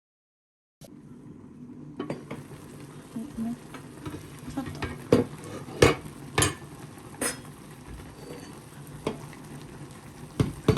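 Food sizzling on a barbecue grill, with about half a dozen sharp clicks of metal utensils against the grill. The sizzle starts abruptly about a second in.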